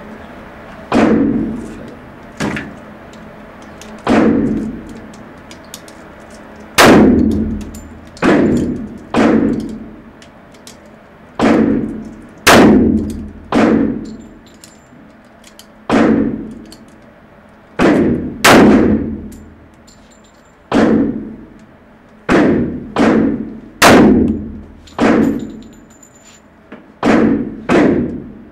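Colt M1911A1 pistol firing .45 ACP rounds, about twenty shots, singly and in quick pairs and triples. Each shot is sharp and leaves a short echoing tail off the walls of the indoor range.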